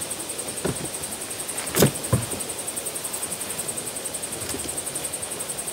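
Camping gear being handled and set down in the cargo area of a van, with one sharp knock about two seconds in and a softer one just after, over a steady background hiss with a faint high even pulsing.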